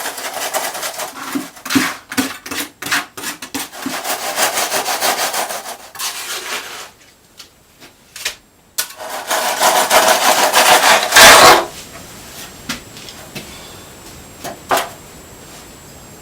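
A tool scraping through wet concrete as a fresh rough floor is spread and levelled: repeated rasping strokes with some knocks, a pause in the middle, and a last loud scrape near the end before a few light knocks.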